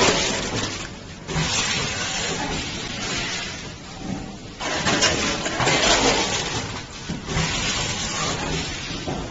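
Multihead weigher on a chips packing machine running: a noisy mechanical rush that surges louder every few seconds.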